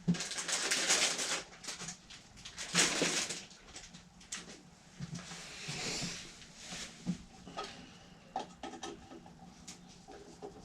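Tool and hardware noises of a screw being worked out of the compressor's cover: two bursts of scraping and rasping, then scattered light clicks and knocks.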